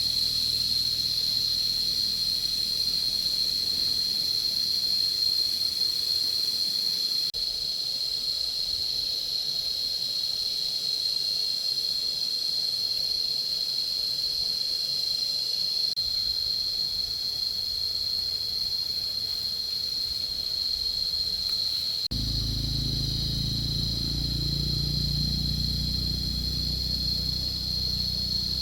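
A steady, high, unbroken insect chorus shrilling throughout. About 22 seconds in, a low rumble joins it.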